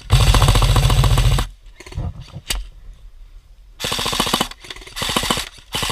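Airsoft electric gun (AEG) firing on full auto in rapid-clicking bursts: one loud burst of about a second and a half at the start, then three shorter bursts in the second half.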